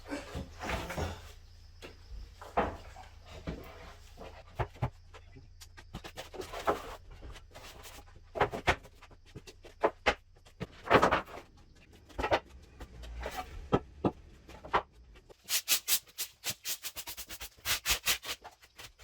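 Scattered knocks, taps and rubbing sounds of handling wood and tools, over a low steady hum. A quick run of sharp clicks comes near the end.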